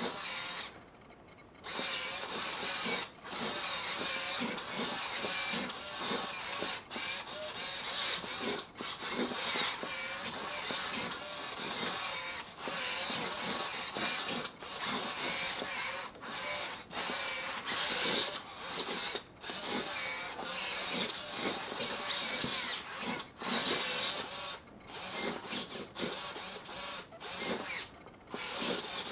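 High-torque hobby servo motors (60 kg·cm) driving a robot doll's limbs, whirring and buzzing in quick stops and starts, beginning about a second and a half in.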